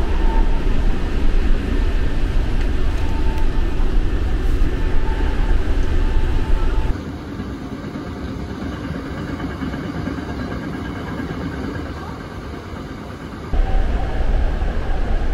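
Running noise inside a Hankyu electric commuter train, the Kyo-train Garaku, at speed: a steady rumble of wheels on rails with a deep low end. About seven seconds in it drops suddenly to a quieter, thinner running sound, and the loud rumble comes back abruptly near the end.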